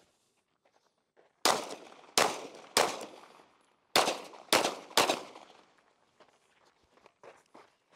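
Six gunshots in two strings of three, each shot ringing off briefly. The pair of triples fits three rounds fired into each of two targets.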